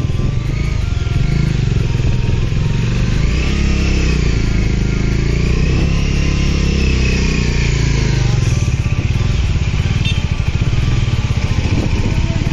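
Motorcycle engine running under way, its revs rising and then easing off around the middle.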